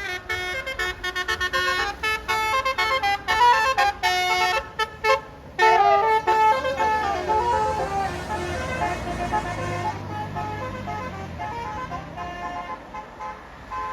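A bus's telolet Basuri multi-tone horn playing a rapid, choppy melody of short notes, then a longer run of notes that glides downward and fades. The bus's engine rumbles underneath as it goes past.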